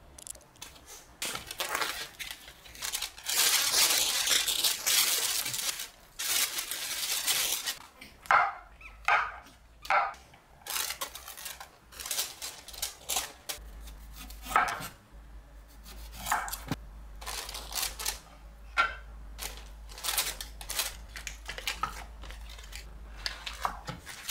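Kitchen food-prep handling on a wooden cutting board: a few seconds of loud crinkling and tearing of wrapping, then many short, light clicks and knocks as sliced mushrooms and a knife are handled.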